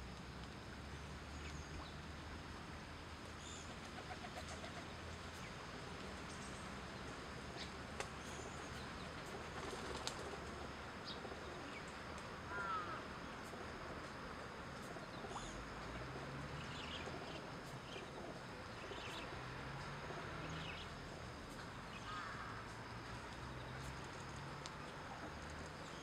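Faint pond-side outdoor ambience: scattered short bird chirps over a low steady hum, with a couple of sharp clicks.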